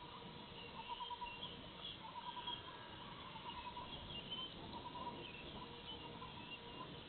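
Faint outdoor wildlife ambience: a short trilled call repeats about once a second, with scattered higher chirps over a steady background hiss and a faint electronic hum from the camera.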